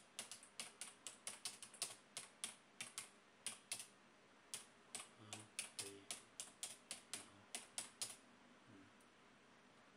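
Typing on a computer keyboard: irregular key clicks, a few a second, that stop about two seconds before the end.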